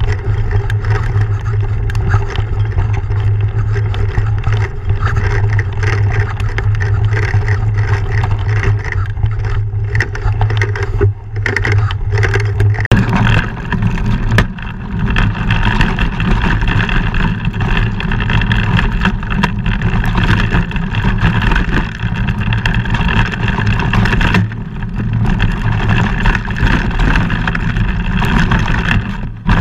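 Mountain bike ride heard through a helmet camera: wind rushing over the microphone and knobbly tyres rumbling over a dirt trail, with frequent knocks and rattles from the rough ground. The sound changes abruptly about 13 seconds in.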